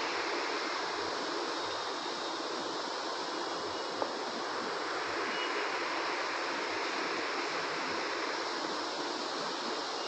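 Steady rushing hiss with one sharp click about four seconds in.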